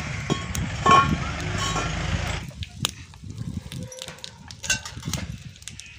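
A low rumble for the first two seconds or so, then a wood fire crackling under an iron tawa of frying fish: scattered sharp pops and snaps.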